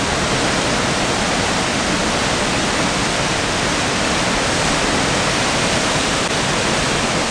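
A steady rush of whitewater from a river waterfall and rapids in flood, running at about 9,000 to 10,000 cubic feet per second.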